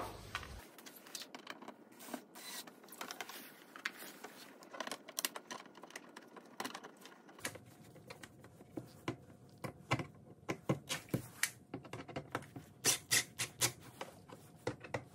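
Hand tool tightening the T20 star screws of a licence-plate frame: a run of small sharp clicks, louder and more regular in the second half at about two or three a second.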